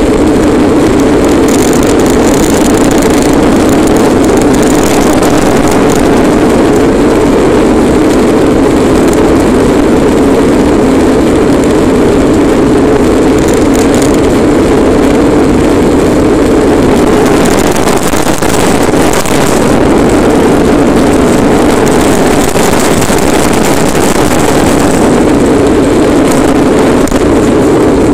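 Hard plastic wheels of a Bobby-Car ride-on toy rolling fast downhill over asphalt: a loud, steady rumbling drone.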